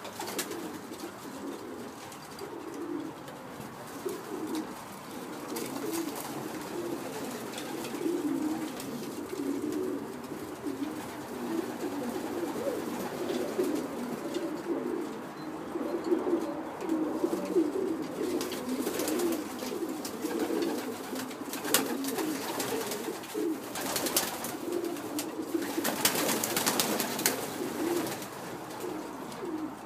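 A loft full of pigeons cooing together, a continuous overlapping low cooing from many birds. A few short sharp sounds stand out in the second half.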